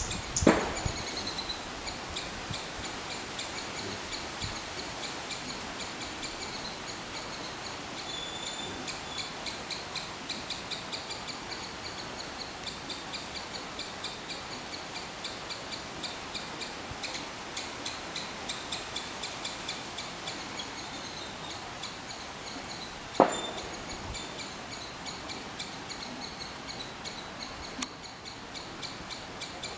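Three-striped palm squirrel calling: a long, rapid run of high, sharp chips repeated several times a second. A single sharp knock about 23 seconds in.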